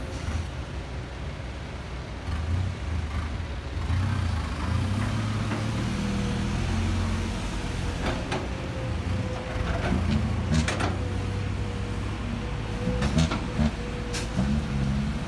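Kobelco SK200 hydraulic excavator's diesel engine working under load, rising in level a couple of seconds in as the machine swings and digs, with a steady thin whine over it. A few sharp metallic clanks from the bucket and boom come in the second half.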